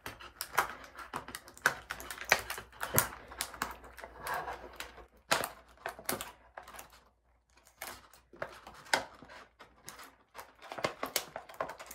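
Thin clear plastic blister tray of an action-figure package handled and pried open by hand: irregular crackles and sharp clicks of the plastic, with a short pause about seven seconds in.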